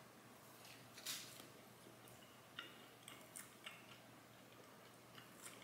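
Faint chewing of a dense chicken biscuit sandwich: one short, louder bite sound about a second in, then scattered small mouth clicks.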